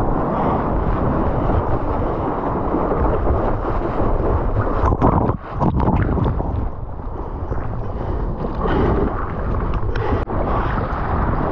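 Ocean surf and churning whitewater washing around a camera at water level, with heavy water-and-wind rumble on the microphone. A little after five seconds the sound dips and breaks up briefly as the camera goes into the foam.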